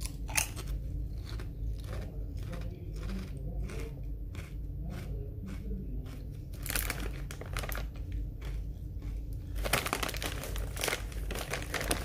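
Chewing a crunchy Lay's potato chip: a run of crisp crunches, about two to three a second, for the first six seconds. Then the plastic chip bag crinkles as a hand rummages in it, briefly around the middle and louder over the last two seconds.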